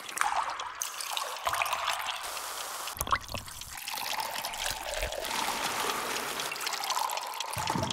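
Liquid pouring and splashing into glasses and a cup, in several short takes, with the sound changing about one and three seconds in.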